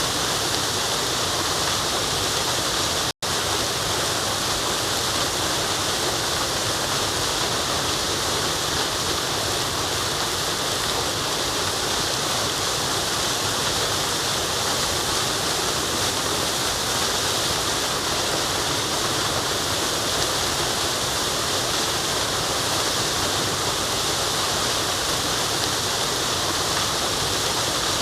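Steady rushing of a forest waterfall, even and unchanging, cutting out for an instant about three seconds in.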